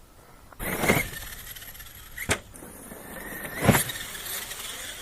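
Arrma Kraton 6S EXB RC monster truck with a Hobbywing Max6 brushless motor driving hard: motor whine and tyre noise start about half a second in, with sharp knocks about two seconds in and again near four seconds, the second the loudest.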